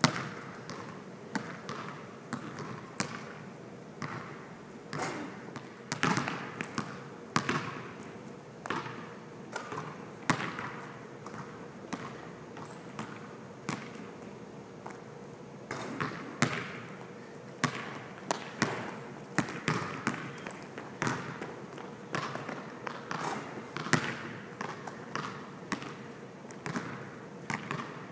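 A basketball being dribbled on an indoor court: sharp bounces, some in quick runs and some on their own, each echoing in a large hall.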